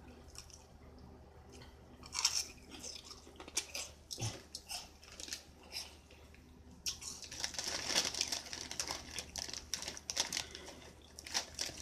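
Crisp crunching and chewing of Flaming Hot Funyuns onion-flavored rings close to the microphone, in irregular bites. From about seven seconds in, a denser crackling as the snack bag is handled and rummaged.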